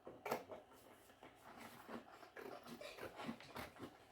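Scissors cutting paper card: faint, irregular snips and paper rustles.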